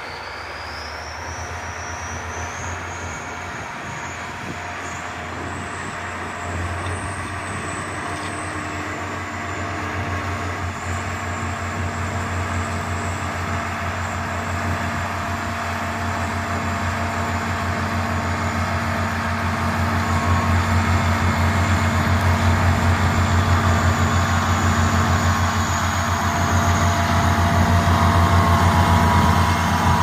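Diesel engine of a County four-wheel-drive tractor pulling a plough under load, growing steadily louder as it comes closer.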